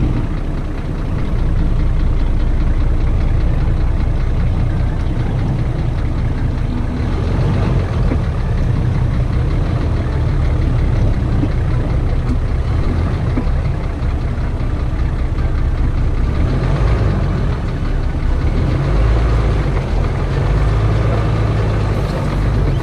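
Off-road 4x4's engine running at low revs as it crawls up a muddy trail: a steady low rumble that rises and falls a little with the throttle.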